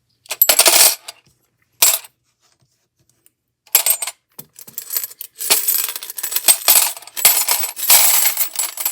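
Planner binding discs clinking and clattering as they are handled and dropped into a mini vending machine: a few short bursts, then a longer, denser run of clatter in the last few seconds.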